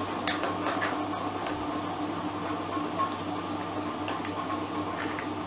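Steady background hum and hiss, with a few faint light clicks from a plastic bottle and rubber balloon being handled as the balloon is stretched over the bottle's mouth.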